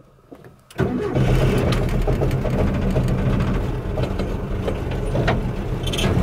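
1971 Volkswagen Beetle Baja bug's air-cooled flat-four engine catching about a second in as it is restarted after a stall, then running steadily at a low, even note.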